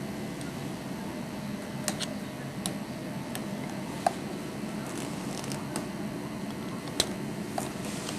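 Steady low electrical or machine hum with a few sharp clicks scattered through it.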